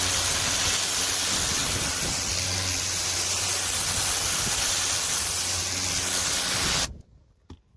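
Pressure washer spraying through a turbo nozzle: a loud, steady hiss of water jetting onto the surface over a low machine hum. It stops abruptly near the end.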